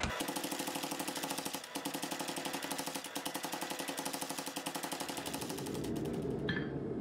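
Mechanical power hammer pounding a hot damascus billet in quick, even blows, about seven or eight a second. The blows stop about six seconds in.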